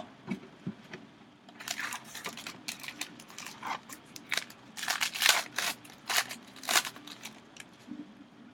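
Baseball card pack wrapper being torn open and crinkled: a run of irregular sharp crackling rustles, dying away near the end.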